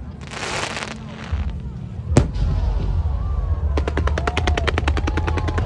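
Fireworks going off: a hissing burst, a single sharp bang about two seconds in, then from the middle on a rapid run of crackling reports, about eight a second, with whistling glides, over a steady low rumble.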